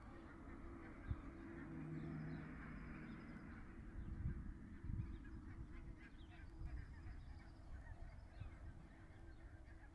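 Faint open-air wetland ambience: scattered distant bird calls, with low wind rumble on the microphone.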